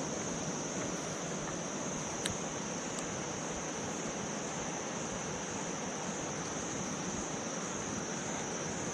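Insects droning steadily at one high pitch over an even background hiss, with a couple of faint clicks about two and three seconds in.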